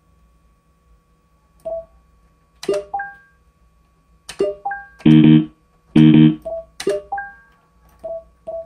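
Pachislot machine's electronic sound effects: sharp clicks, each followed by a short beep, in an irregular sequence, with two louder buzzy electronic tones about five and six seconds in.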